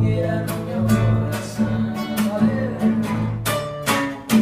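Acoustic guitar strumming chords, with a last chord struck near the end and left ringing.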